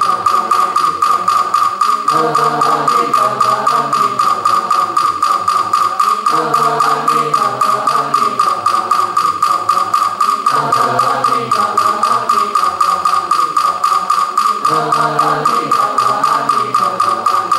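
Wooden fish (muyu) struck with a mallet in a steady, even beat, its hollow body ringing, under group chanting in unison of the kind used in Buddha-name recitation.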